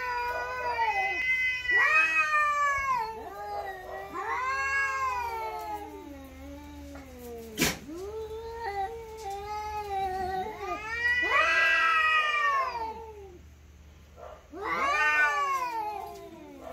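Two cats caterwauling at each other in a standoff: long, drawn-out yowls that waver up and down in pitch, sometimes overlapping, coming in waves with a short lull. A single sharp click about halfway through.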